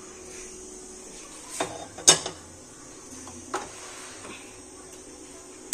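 A few sharp clinks and knocks of kitchen dishes and utensils being handled, the loudest about two seconds in and another at the very end, over a steady faint hiss.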